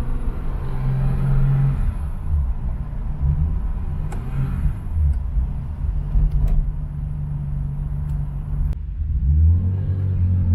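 BMW S38B36 3.6-litre inline-six running in a car under way, heard from inside the cabin; the engine note shifts with the throttle and rises near the end as the car accelerates.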